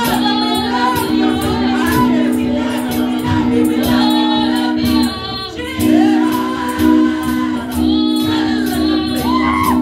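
Women singing a gospel worship song into microphones, the lead voice loud and full, over a held chord and a steady ticking beat. The chord drops out for a moment about halfway through.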